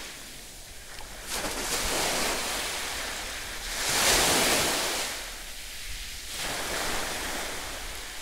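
Sea surf washing in swells a couple of seconds apart, with water splashing from a swimmer in the shallows and some wind on the microphone.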